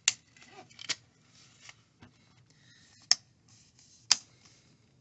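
Plastic hinge cover of an HP Chromebook 11 G8 EE being pressed onto the laptop's back edge and clipping into place with four sharp clicks, two in the first second and two more about a second apart near the end, with light rubbing of plastic between.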